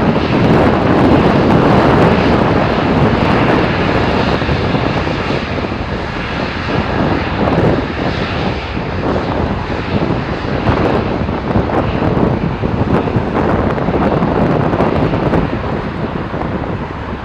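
Boeing 787-9 airliner's jet engines running as it passes close by, a steady roar that eases off slightly after a few seconds as the aircraft moves away, with wind buffeting the microphone.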